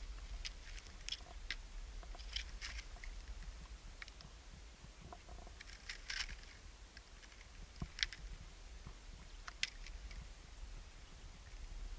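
Footsteps crunching over loose, sharp volcanic lava rock: irregular small crunches and clicks, with a low steady rumble underneath.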